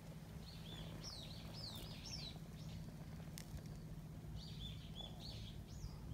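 A small songbird singing two short bursts of quick, rising and falling chirps, the first about half a second in and the second near five seconds, over a steady low hum.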